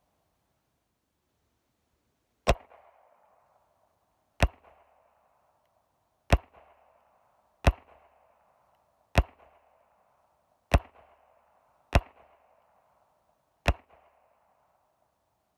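Eight suppressed .22 LR shots from a Beretta Model 71 semi-automatic pistol fitted with an AWC Archangel II suppressor, fired slowly about one every one and a half to two seconds. Each shot is a sharp crack followed by a short fading echo.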